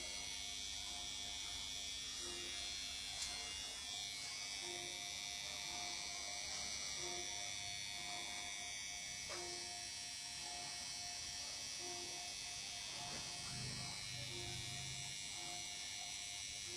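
Steady buzz and high hiss, with a faint short low tone recurring about every two and a half seconds.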